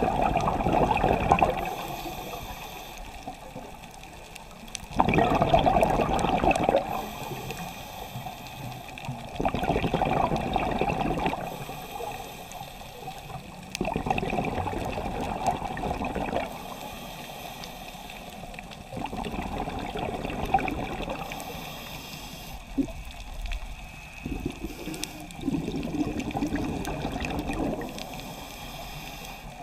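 Scuba diver breathing through a regulator underwater: a burble of exhaled bubbles about every five seconds, with quieter stretches between breaths.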